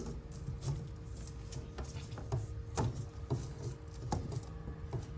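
Irregular light clicks and taps from working a window screen's rubber spline back into the frame's channel, over a steady low hum.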